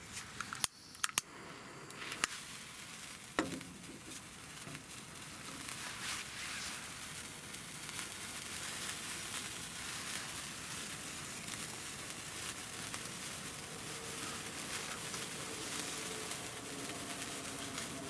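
Two #10 gold sparklers burning with a steady fizzing crackle that builds up a couple of seconds in. A few sharp clicks come first.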